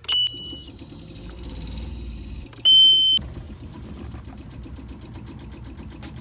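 An engine running steadily with a fine regular pulse, and two high electronic beeps: a short one at the start and a louder, half-second one a little before the middle.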